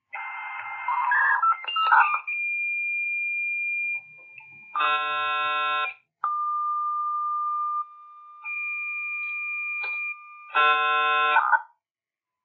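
Dial-up modem handshake sound played as the page connects. First a rough noisy burst, then a steady high tone, a short buzzy chord, a long lower tone joined by a higher one, and a second buzzy chord. It cuts off sharply near the end.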